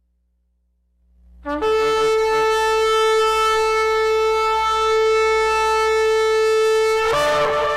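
A long single blast on a horn: one steady held note for about five and a half seconds, whose pitch wavers and breaks near the end before it dies away.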